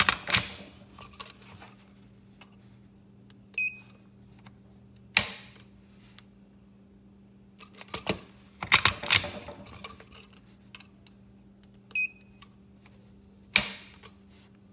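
Dry-fire pull tests on a stock Glock 19 Gen 4 trigger with a Lyman electronic trigger pull gauge, done twice. Each time the slide is racked to reset the trigger, the gauge gives a short beep, and the trigger then breaks with one sharp click.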